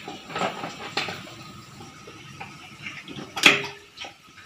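A few knocks of metal cookware. The loudest comes about three and a half seconds in and rings briefly.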